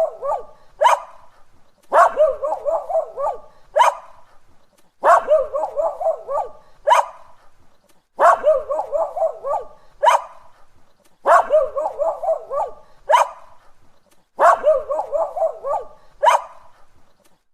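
A dog barking in a repeating pattern: a quick run of yapping barks about a second and a half long, then one sharp single bark, repeated about every three seconds.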